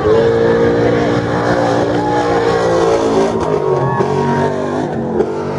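Race truck's V8 engine running, its pitch sinking past the middle and climbing again near the end as the revs change.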